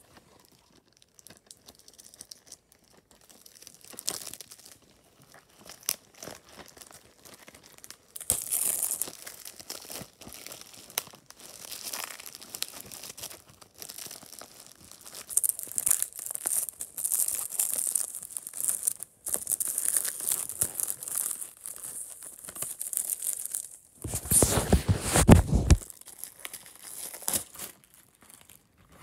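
Clear plastic wrapping being torn and crinkled off a DVD case, in spells of rustling with short pauses between. A louder, deeper rustle comes about 24 seconds in.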